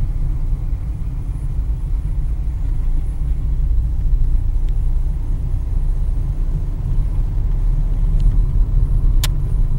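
Steady low rumble of a car driving at about 40 km/h, heard from inside the cabin: engine and tyre noise, with a single sharp click about nine seconds in.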